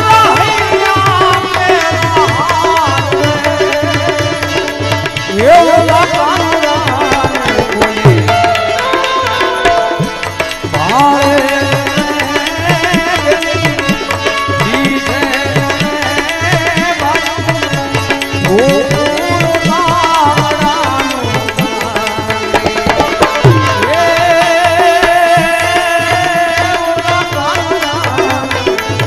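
Live devotional music: a harmonium plays the melody while a tabla keeps a steady rhythm of strokes.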